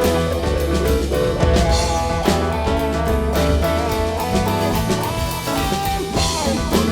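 Live rock band playing an instrumental jam: electric guitar playing a lead line with bending notes over bass, a drum kit and keyboard.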